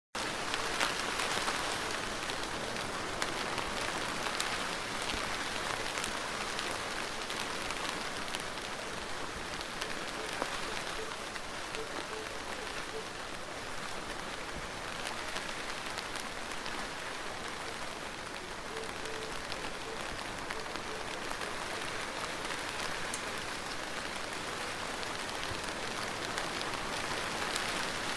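Steady heavy rain falling on a surface, with many small drop ticks and no thunder.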